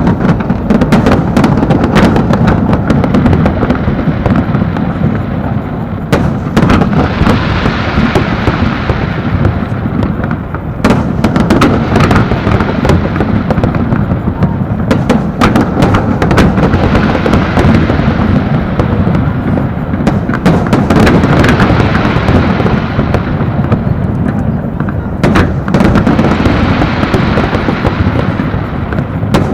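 Large fireworks display: a continuous, loud barrage of shell bursts with no gaps, over a steady low rumble. Three times a higher crackling hiss swells and fades away.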